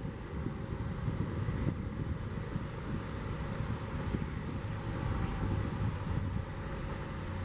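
Union Pacific diesel locomotives hauling a freight train as it approaches, their engines making a steady low drone.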